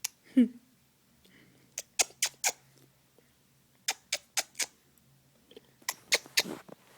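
A two-month-old baby's short squeak falling in pitch, then three runs of quick, sharp smacking clicks, each of three or four clicks about a quarter of a second apart.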